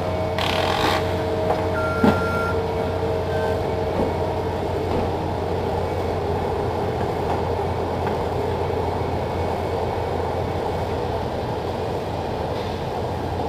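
Steady mechanical drone with a low hum, with a few thin steady tones and a brief tick in the first few seconds.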